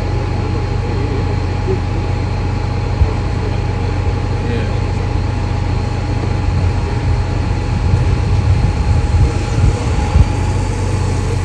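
Diesel engine of a boat travel lift running steadily during a haul-out, with a low rumble and a constant whine. A sharp click about three seconds in and a few louder knocks near the end.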